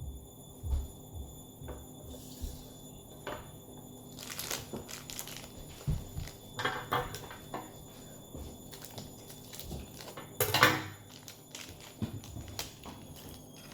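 Handling and crinkling of a plastic toy blind bag as it is opened, with scattered knocks and taps and a few louder crinkling bursts; the loudest comes near the end.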